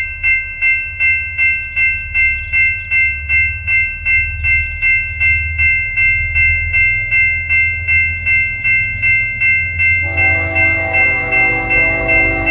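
A railroad crossing bell rings steadily, about two and a half strikes a second, over a low rumble. About ten seconds in, the approaching BNSF freight locomotive sounds its multi-tone air horn and holds it.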